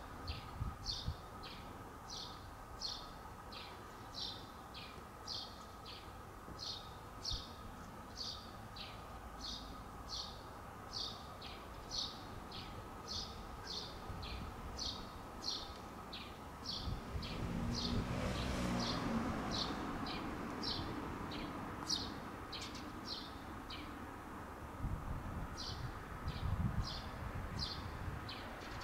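A small bird chirping over and over, short high chirps about twice a second, with a brief pause near the end. A rushing noise swells for a few seconds midway.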